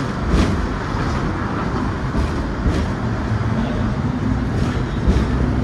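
Hong Kong double-decker tram running along its rails, a steady low rumble heard from the upper deck, with a few sharp clicks scattered through it.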